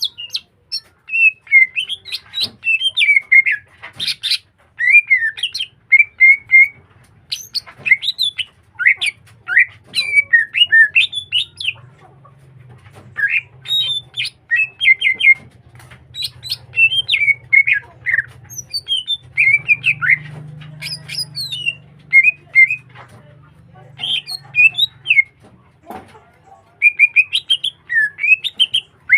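Green leafbird (cucak hijau) singing at full voice: a rapid, varied song of sliding whistled and chattering notes in dense phrases broken by short pauses.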